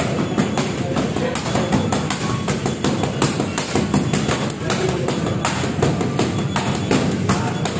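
Music with a drum beat, over repeated sharp slaps of boxing gloves striking focus mitts in quick, irregular combinations.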